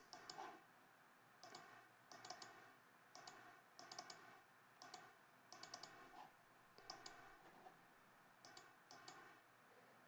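Faint computer mouse clicks, singly and in quick runs of two or three, about one a second, with a pause of over a second late on.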